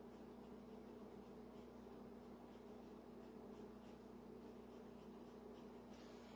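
Faint scratching of a colored pencil on paper in short, repeated strokes, over a low steady hum.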